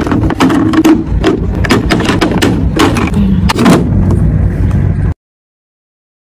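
Rapid, irregular knocks and clatter of plastic and glass skincare bottles being handled and set down inside a clear acrylic storage organizer, about five knocks a second over a low rumble. The sound cuts off suddenly to silence about five seconds in.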